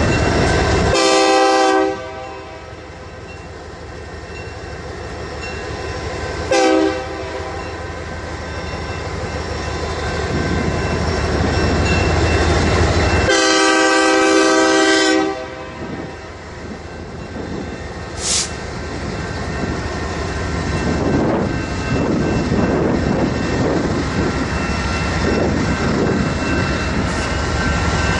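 Diesel locomotive air horn sounding for a grade crossing over the rumble of two BNSF diesel locomotives, a GP39 and an AC4400CW, rolling past: a blast of about a second, a short blast, then a longer one of about two seconds. After the locomotives come freight cars rolling by with clickety-clack, and later a brief high squeal.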